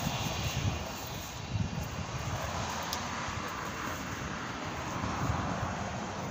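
Distant Embraer ERJ-145's twin Rolls-Royce AE 3007 turbofan engines running steadily as the jet rolls slowly along the runway, with gusts of wind buffeting the microphone.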